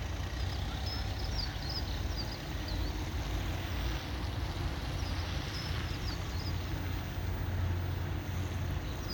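Steady low outdoor rumble with an even background hiss. A short high chirping phrase comes twice, near the start and again about five seconds in.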